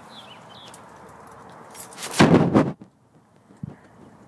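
A single loud bang about two seconds in, lasting about half a second and stopping sharply, after which the background outdoor noise drops away.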